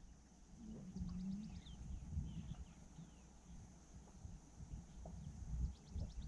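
Faint outdoor ambience of bird calls: short chirps and two quick rattling trills, about a second in and near the end. Beneath them runs a steady high hiss and low, irregular knocks and bumps.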